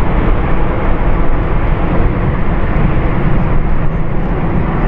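Jet noise from an Airbus A380's four Engine Alliance GP7000 turbofans as it flies a slow, high-alpha pass: a loud, steady sound.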